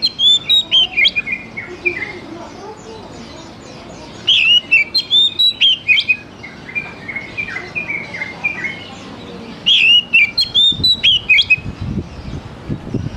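Oriental magpie-robin (kacer) singing: three bouts of loud, quick whistled and chirping notes, at the start, about four seconds in and about ten seconds in, with softer strings of notes between them. A low rumble comes in near the end.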